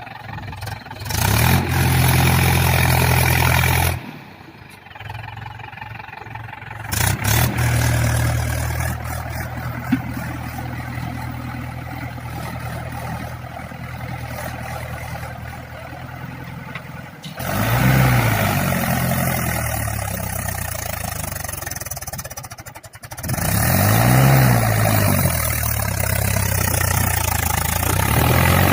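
Mahindra tractor's diesel engine running hard, with sudden cuts in the sound. Later it revs up and back down twice, about two-thirds of the way through and again near the end.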